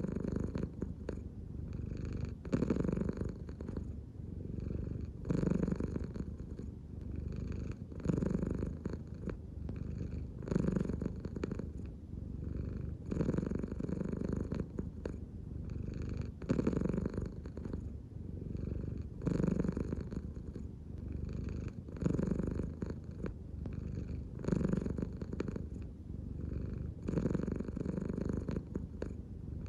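American Shorthair cat purring continuously, the purr swelling and easing in a regular cycle about every two and a half to three seconds as the cat breathes slowly in and out from the belly.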